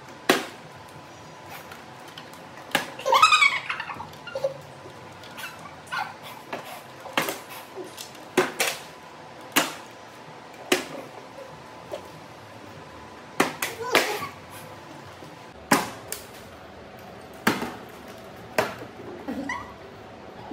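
Partly filled plastic water bottle being flipped over and over and landing on a kitchen countertop, a sharp knock a little over once a second.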